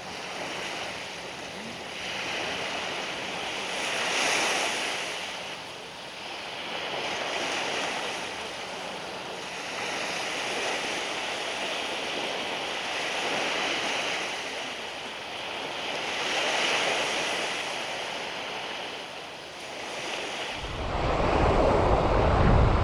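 Small waves breaking and washing up on a sandy beach, swelling and fading about every three seconds. Near the end, a louder low rumble cuts in suddenly.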